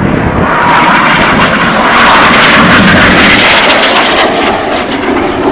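BAE Hawk T1 jets of the Red Arrows flying past, their engines a loud, rushing noise that swells about two seconds in and eases a little near the end.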